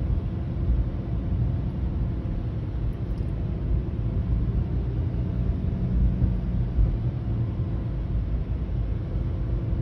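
Lamborghini Huracán STO's V10 engine running steadily at low speed, heard from inside the cabin as a continuous low-pitched sound.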